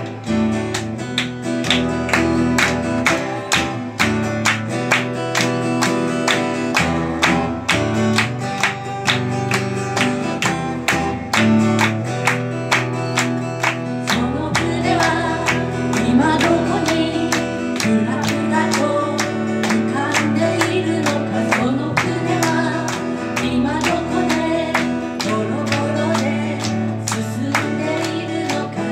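Steel-string acoustic guitar strummed in a steady rhythm over changing chords: an instrumental interlude in a live solo acoustic song.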